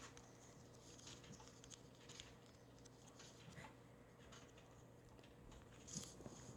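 Near silence with faint, irregular taps and ticks, fingertips typing on a phone touchscreen.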